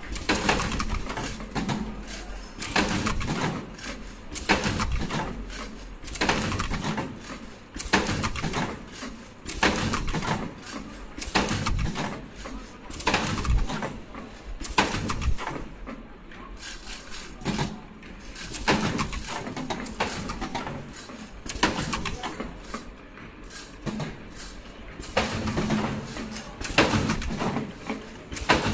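Automatic surgical mask production machine running, its pneumatic and mechanical parts clacking over and over, about once a second, with a faint steady high whine underneath.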